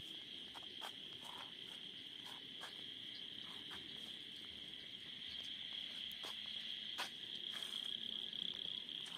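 Night insects, crickets, trilling steadily in a high, even band, with faint scattered clicks.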